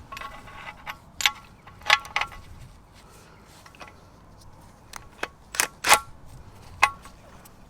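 Hand tools working metal on a car suspension wishbone while an old bush is forced out: about a dozen irregular sharp metallic clicks and knocks, some ringing briefly, the loudest near the middle and about six seconds in.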